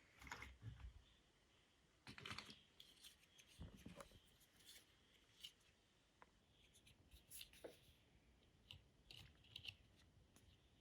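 Faint, irregular clicking and rattling of plastic LEGO bricks being handled and pressed together.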